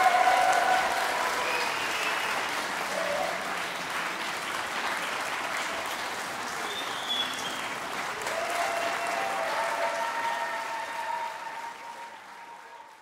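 Concert-hall audience applauding, with a few voices calling out at the start and again in the second half. The applause fades away near the end.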